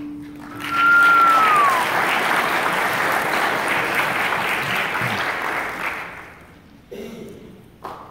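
Audience applause breaks out as the final chord of the mountain dulcimers and guitar rings out, with one short whistle falling in pitch about a second in; the clapping dies away after about six seconds.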